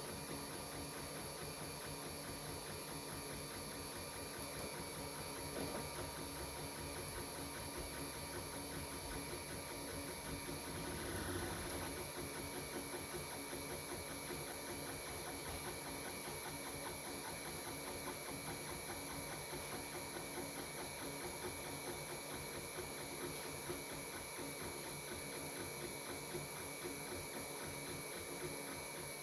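Geeetech A10 3D printer running a print: its stepper motors whir and buzz in quick, shifting tones as the print head and bed move, over a steady high hiss.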